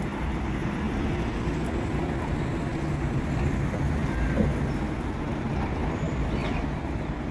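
Steady low rumble of city vehicle traffic.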